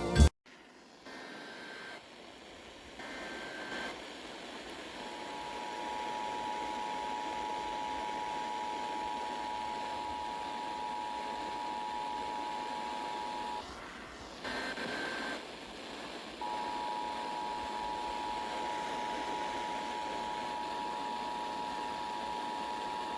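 Emergency Alert System two-tone attention signal: a steady pair of tones just under 1 kHz heard through heavy radio static. Short higher beeps sound before it and in a break about 14 seconds in, after which the tone resumes.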